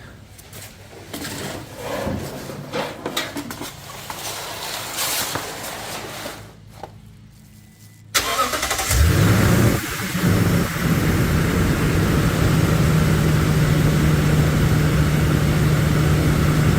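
Scattered clattering and handling noises, then a Toyota Tundra's 5.7-litre V8 starts about halfway through, flares briefly as it catches and settles into a steady idle. It is the first start after an oil change, run so the new oil filter fills with oil.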